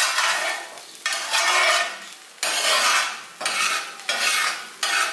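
A metal spatula scraping across a seasoned 12-inch Mainstays cast iron skillet in repeated strokes about once a second. It is lifting the stuck-on browned garlic and butter left from searing steaks, which come away easily from the seasoned surface.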